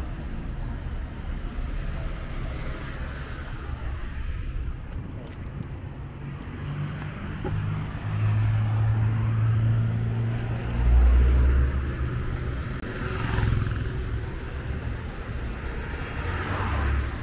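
City street traffic: car engines running and tyres on the road. One vehicle's engine grows loud in the middle, and two cars hiss past near the end.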